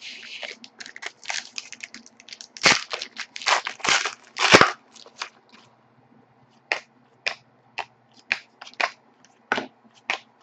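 Hockey card pack wrapper being torn open and crinkled, loudest about halfway through. This gives way to trading cards being flicked through one by one, sharp snaps two or three a second.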